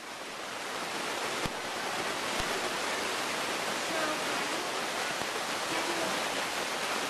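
A steady rushing hiss that swells in over the first second and then holds evenly, with faint voices behind it.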